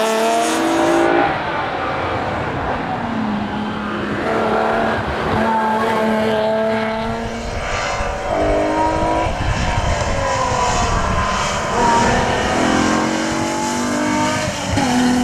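Alfa Romeo GTV6's V6 engine being driven hard. It revs up repeatedly, with the pitch dropping at each gear change, and holds a steadier note for a couple of seconds a few seconds in.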